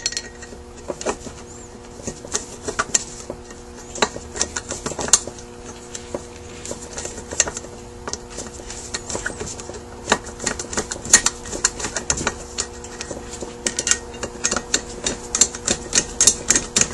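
A screwdriver tightens the new screws that join a Zenith 228 carburetor's throttle body to its float bowl. The sound is sharp metal clicks and scrapes, irregular and coming in clusters.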